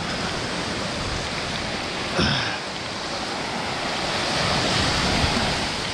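Surf washing onto the beach as a steady rushing hiss, with wind on the microphone. There is a brief bump a little over two seconds in.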